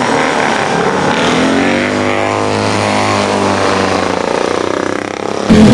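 Vintage racing sidecar motorcycles passing at speed: the engine note of one rises and then falls as it goes by. Near the end the sound cuts abruptly to a louder engine.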